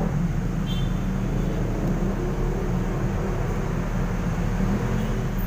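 A steady low hum of background noise with no clear clicks or knocks.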